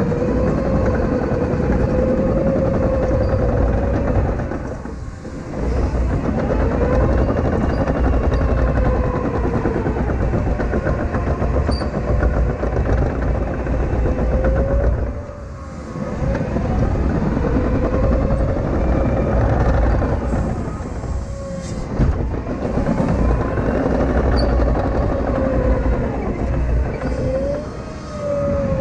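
CAT 953K track loader working under load: its diesel engine runs steadily alongside a whine that wavers up and down in pitch. The sound eases briefly three times, about every ten seconds, as the machine changes pace.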